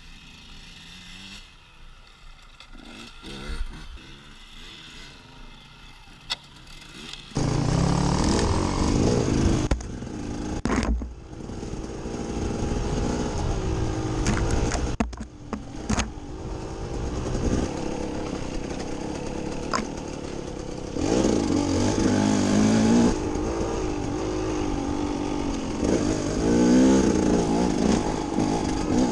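Distant dirt bikes running faintly at first; about seven seconds in, an enduro motorcycle's engine becomes loud and close, heard from a camera on the bike, its pitch rising and falling again and again as the rider works the throttle, with a few knocks from the bike along the way.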